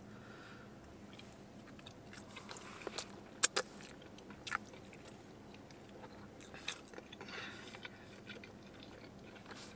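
A person chewing a mouthful of pizza, with a few scattered soft mouth clicks and smacks.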